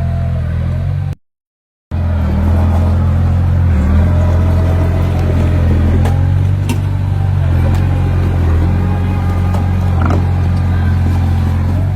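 Heavy diesel engine of earthmoving equipment running steadily under a continuous low drone. The sound cuts out completely for under a second just after the start, then resumes unchanged.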